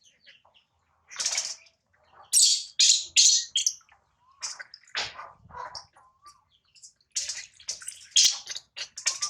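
Water splashing in a string of short bursts around a newborn baby monkey being bathed, with a few faint squeaks between the splashes.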